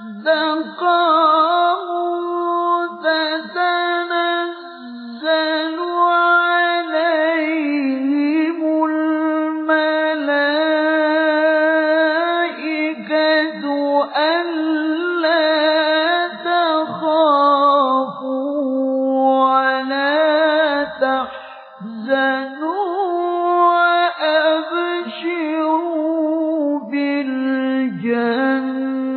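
A male qari reciting the Qur'an in the melodic tilawah style: one voice holding long, ornamented notes with a wavering vibrato, drawing out each phrase, with short breaks about five seconds in and again around twenty-one seconds.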